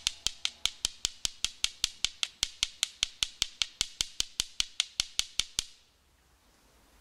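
Flint struck rapidly against marcasite, sharp stone-on-stone clicks at about five strikes a second that stop about five and a half seconds in: percussion fire-lighting, throwing hot sparks onto amadou tinder to catch an ember.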